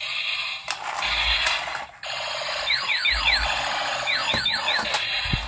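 Electronic sound effects from a battery-operated transforming minion toy car's small speaker: a tinny, buzzy electronic tune with quick falling laser-like zaps, in a cluster about three seconds in and again later.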